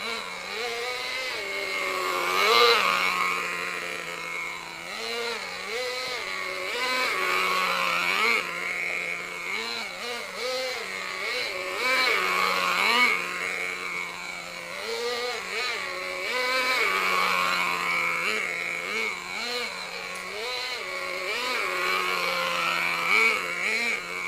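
VRX .18 nitro engine of an RC truck running on a break-in tank, held at a steady idle between short throttle blips that make its pitch rise and fall again and again.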